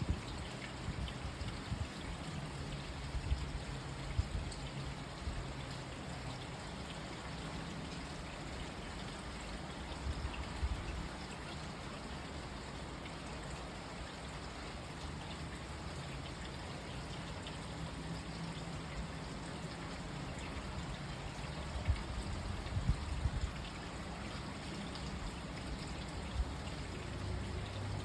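Steady rain with running water, like runoff trickling and pouring, and a few sharp drip-like ticks.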